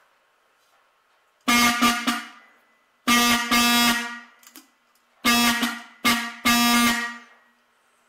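A 1930s Delco-Remy K-31 six-volt vibrator-type car horn, run off a 6-volt battery bank, sounding four harsh, buzzy honks at one steady pitch. The first comes about a second and a half in, and each ends with a short fading tail.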